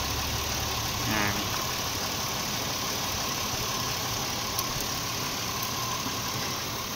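Chevrolet Impala's 3.4 V6 engine idling steadily, running normally now that its stall-when-hot fault has been cured.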